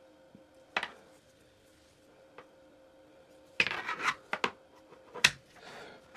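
Hard objects being handled: a click, then a short clatter and rubbing of hard items about midway, and a sharp click near the end.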